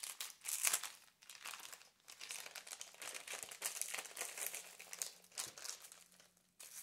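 Clear plastic packaging bag crinkling as hands handle and open it, in irregular crackles that come and go.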